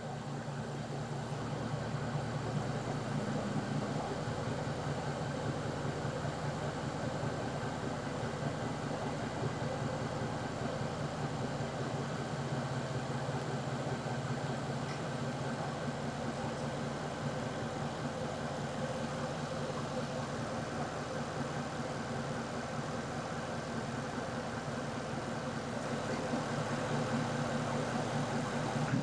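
Land Rover Defender 90's 5.0-litre supercharged V8 idling steadily.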